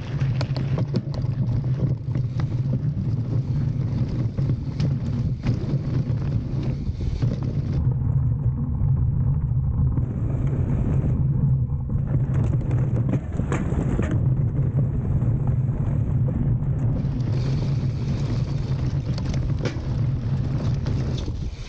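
Jamis Hardline A2 full-suspension mountain bike ridden on a trail: a steady low rumble from the tyres and wind on the microphone, with frequent clicks and rattling knocks as the bike goes over bumps.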